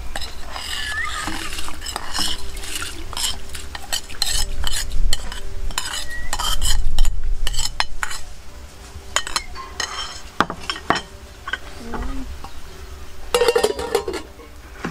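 Metal ladle scraping and clinking against a ceramic bowl as soaked rice is pushed off it into a pot of liquid, in a run of irregular scrapes and knocks. Near the end, an aluminium pot lid clatters as it is handled on the pot.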